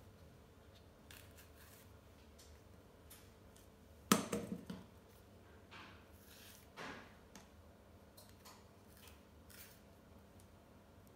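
Soft rustling of overripe bananas being peeled by hand, with a sharp knock about four seconds in and a smaller one near seven seconds as the peeled bananas go into a stainless steel bowl.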